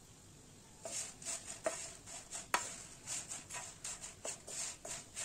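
Whole dried red chillies being stirred and tossed with a wooden spatula in a nonstick frying pan as they dry-roast: papery rustling and scraping strokes, about two to three a second, starting about a second in, with one sharper knock about two and a half seconds in.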